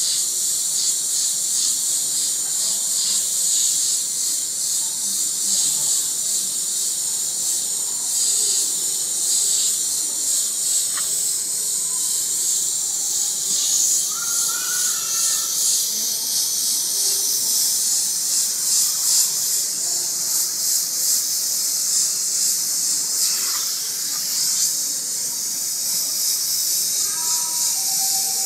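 Airbrush hissing steadily with compressed air as it sprays paint onto poster board.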